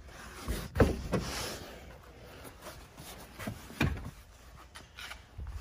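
A few sharp clunks and knocks from the rear seatback latch and folding seatbacks of a 2015 Honda Civic sedan being released from the trunk, with rustling handling noise in between. The knocks cluster around the first second, and another comes near four seconds.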